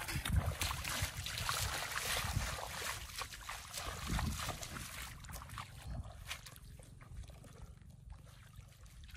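Bare feet splashing and sloshing through shallow muddy water, one irregular step after another, growing quieter toward the end.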